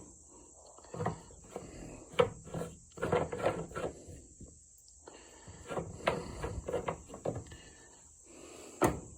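Scattered clicks, knocks and rustles of small motorcycle parts being handled, likely the aluminum gas cap and fuel tank fittings, with one sharp click near the end. A thin, steady high-pitched tone runs in the background.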